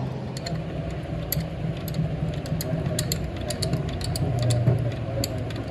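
Light metallic clicks and ticks, scattered irregularly, as a hand tool and bolts are handled on a Fiat 640 tractor clutch pressure-plate assembly, over a steady low hum in the background.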